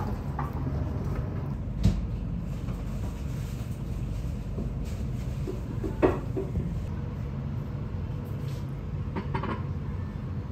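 Steady low rumble of room ambience, with two light knocks, one about two seconds in and a louder one about six seconds in.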